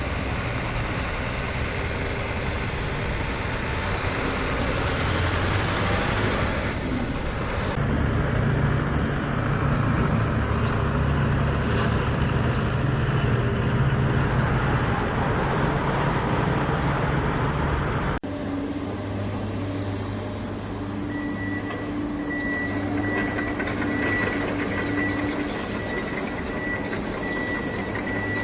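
Toy construction vehicles' electronic engine sound running steadily, changing abruptly twice. About three quarters of the way through, a repeating reversing beep joins in.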